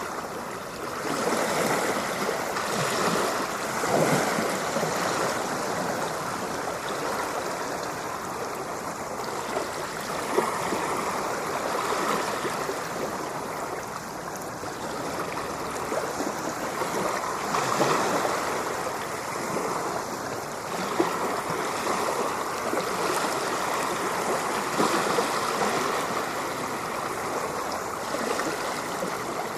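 Ocean waves washing in, a continuous rushing hiss that swells and eases every few seconds.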